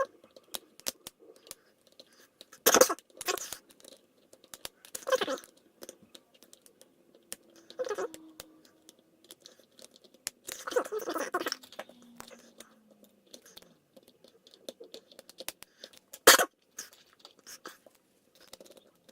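Faint, irregular clicking and scraping of a hook pick lifting pins in a euro-profile cylinder lock under hex-key tension. Several louder knocks and rustles break in, and one sharp loud click comes about sixteen seconds in.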